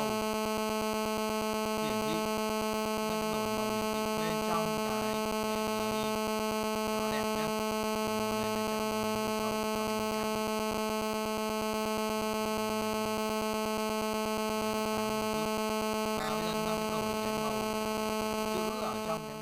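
Steady electrical hum made of several held tones, unchanging throughout.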